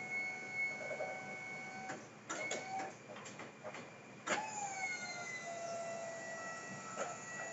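A wing van's wing-lift power unit, an electric motor driving a hydraulic pump, whines steadily and stops just before 2 s, followed by a few clicks and knocks. It starts again with a sharp click at about 4 s; its whine drops in pitch, then holds steady as it works the side wing.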